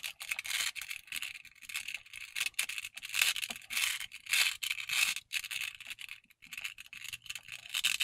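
A 5x5 Rubik's cube being turned quickly by hand: a rapid, irregular run of plastic clicks and scraping as its layers rotate.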